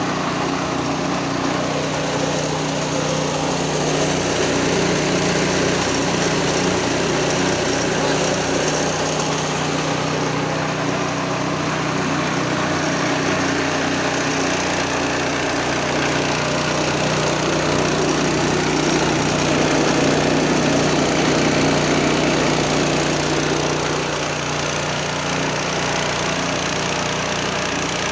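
Mahkota KD 350 mini rice huller running steadily: a constant machine hum under an even hiss.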